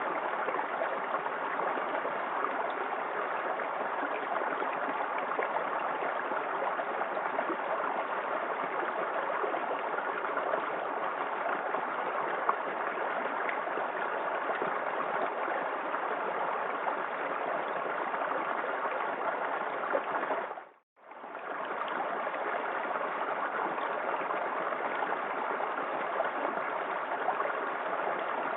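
Small waterfall in a forest creek: water falling and splashing in a steady rushing wash. About two-thirds of the way through it fades out to silence for under a second, then comes straight back.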